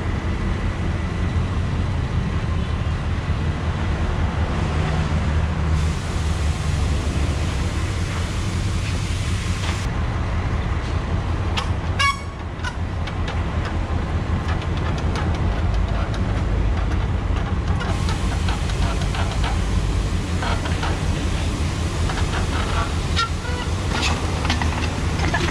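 Trials bicycle knocking against boulders as it hops and lands: one sharp knock about twelve seconds in and a run of clicks and knocks near the end, over a steady low rumble.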